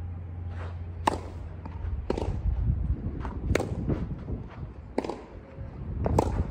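Tennis balls struck by rackets and bouncing on a clay court during a rally: sharp pops about every second or so. A low steady hum runs underneath for the first two seconds.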